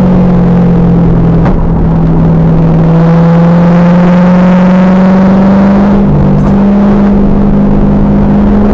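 The 2000 Pontiac Trans Am Firehawk's LS1 V8, through its SLP exhaust, pulling under load, its pitch climbing slowly and steadily after a brief click and small drop about one and a half seconds in. The recording is very loud and harsh.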